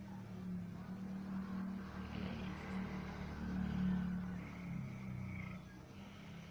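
A person snoring heavily: a low, droning snore that swells to its loudest about four seconds in and eases off after about five and a half seconds.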